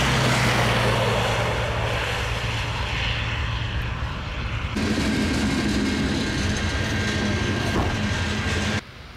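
Freight train passing a railroad crossing: a steady low rumble under a broad rushing noise. About halfway through it changes abruptly to a steadier hum with a held higher tone, and it cuts off suddenly near the end.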